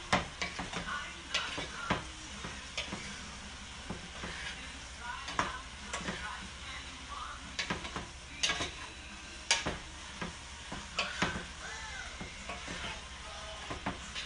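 Sliced eggplant frying in hot oil with a steady sizzle, while a utensil stirs it around the pan, giving repeated sharp scrapes and clicks against the pan.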